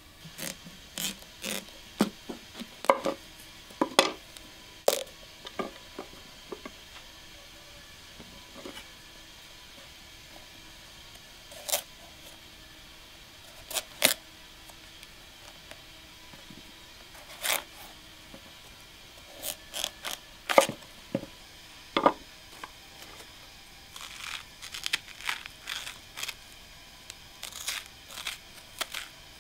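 A large kitchen knife cracking through the hard rind of a whole pumpkin and knocking on a wooden cutting board, in scattered sharp cracks with pauses between. Near the end, a metal spoon scrapes the seeds and stringy pulp out of the pumpkin halves in quick strokes.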